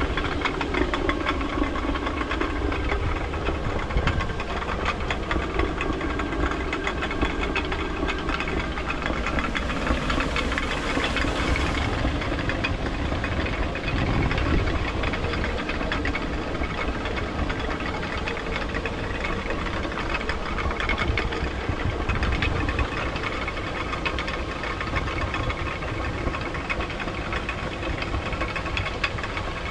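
Traditional Nepali water mill (ghatta) running: steady rushing water with a continuous rapid rattle of clicks from the turning millstone and its grain feed.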